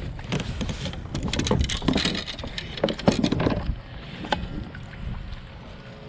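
Knocks and clatter against a plastic sit-on-top fishing kayak as a caught fish and tackle are handled, busiest for the first three and a half seconds, then fewer and quieter, over a steady low rumble of wind on the microphone.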